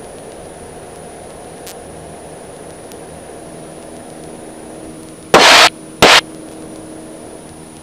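Steady drone of the Cessna 150's engine heard through the cockpit intercom audio, with a faint high whine. About five seconds in come two loud bursts of radio static, the first about a third of a second long and the second shorter, a moment apart.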